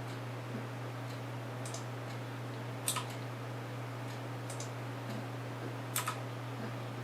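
A few scattered sharp clicks, the strongest about three and six seconds in, typical of computer mouse and keyboard use, over a steady low electrical hum.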